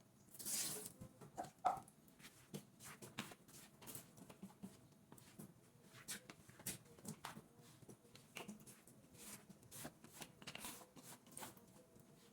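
Faint, scattered light clicks and brief rustles, irregular, with the loudest cluster in the first two seconds, over a faint steady hum.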